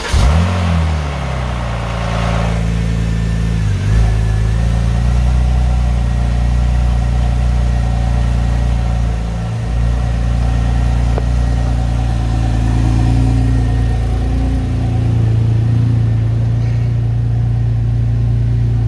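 Porsche 996 Turbo's twin-turbo flat-six catching as it starts, flaring briefly in revs, then settling into a steady idle. This is the first start after an alternator and voltage regulator replacement.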